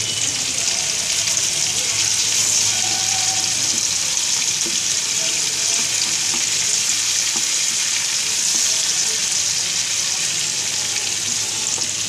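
Marinated chicken pieces shallow-frying in hot oil in a kadai, a steady sizzle, with a fork moving and turning the pieces in the pan.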